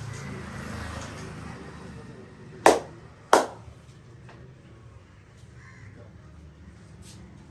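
Two sharp, loud massage slaps of the barber's hands, about two-thirds of a second apart.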